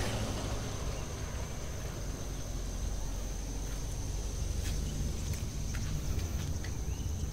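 Outdoor ambience: a low steady rumble under a thin, steady, high-pitched insect whine, with a few faint clicks a little past the middle.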